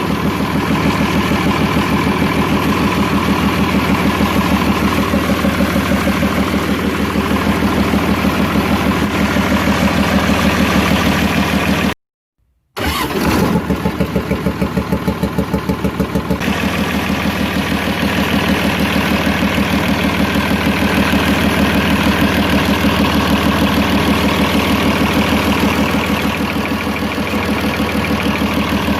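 Six-cylinder diesel engine idling with a rapid even clatter from one valve tappet whose clearance is set wrong. After a brief cut about twelve seconds in, the same engine runs again with its valve clearance adjusted.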